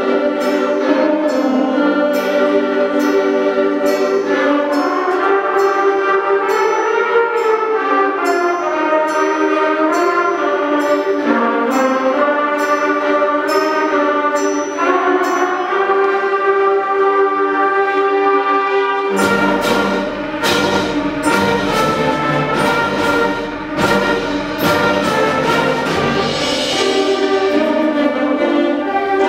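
A sixth-grade concert band of woodwinds and brass playing: held chords over a steady beat of light percussion taps. About two-thirds of the way through, low brass and bass come in with heavy drum hits.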